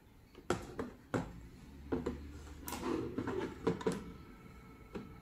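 Plastic desk phone being handled and turned over on a table: a string of irregular light knocks and clicks from its casing, antenna and handset.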